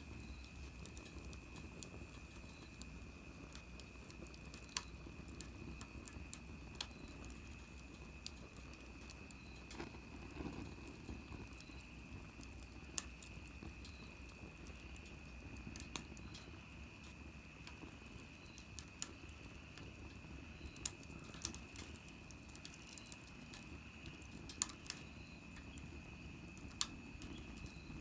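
Small wood fire in a compact fire stand crackling, with soft continuous crackle and scattered sharp pops at irregular moments.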